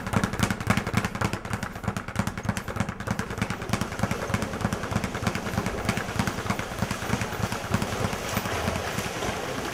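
Speed bag punched rapidly, rattling in a fast, even run of many strikes a second. After a few seconds the strikes blur into a more even wash of noise.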